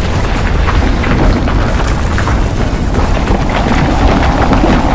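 Animated sound effect of rocks tumbling into fire: a loud, continuous low rumble with crackling and no break.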